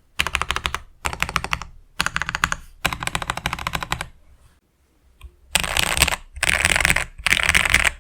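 Mechanical keyboard typed on fast, in runs of rapid key clicks about a second long, with a short pause about halfway through, then three louder, brighter runs near the end.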